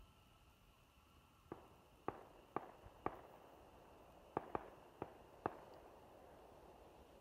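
Distant fireworks going off: a string of about eight sharp, irregular pops, starting a second and a half in, with a short run of pops in the middle.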